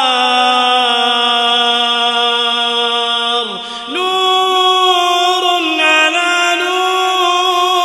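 A man's voice reciting the Quran in slow, melodic chant, holding each note long and sliding between pitches. There is a brief breath pause about three and a half seconds in, then the next phrase.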